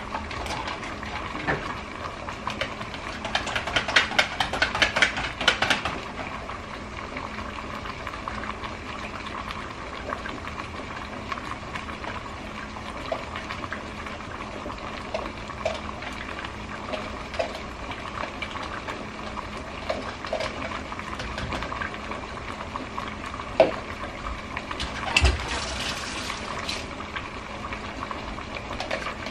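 A large pot of lasagna noodles boiling steadily on a gas stove. Over it, a spoon clinks and scrapes rapidly for a few seconds early on as cottage cheese is scooped from its tub into a mixing bowl, with scattered single clinks after and another short scrape near the end.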